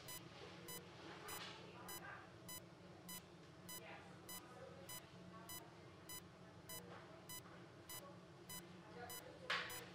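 ICU bedside patient monitor sounding its steady pulse beep, short beeps just under two a second, over a low room hum. Soft rustling of drapes and instruments being handled, with a louder rustle near the end.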